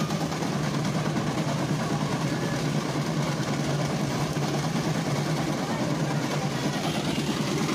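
An engine running steadily with a low drone, amid a steady rushing noise.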